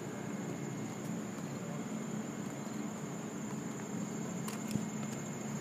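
Steady outdoor ambience: a continuous high-pitched insect trill over a low hum, with a couple of faint clicks about four and a half seconds in.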